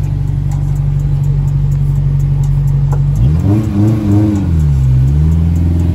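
Honda S2000's four-cylinder engine idling, heard from inside the cabin. About three seconds in it revs once, rising and falling, dips briefly, then settles back to a steady idle.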